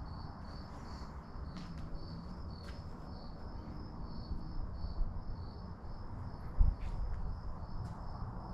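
Cricket chirping in a steady, even rhythm over a low background rumble, with one dull low thump about two-thirds of the way through.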